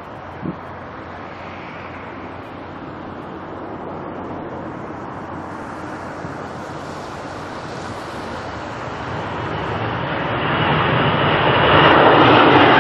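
Jet airliner's engines, a steady rushing rumble that grows louder over the last few seconds as the aircraft comes closer. A single short knock about half a second in.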